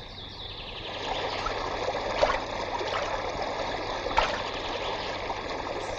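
Shallow stream running over rocks, with a few brief splashes as bare feet step through the water.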